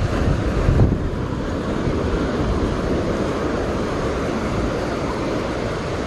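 Surf washing onto the beach under wind buffeting the microphone, with a strong low gust about a second in.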